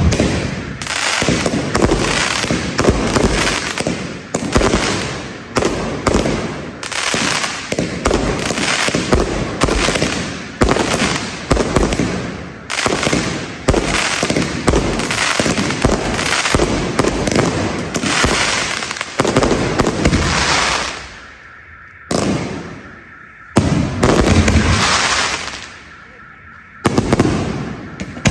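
Fireworks and firecrackers going off: many sharp bangs and crackling bursts overlapping almost without pause, then thinning to a few separate loud blasts with short lulls between them near the end.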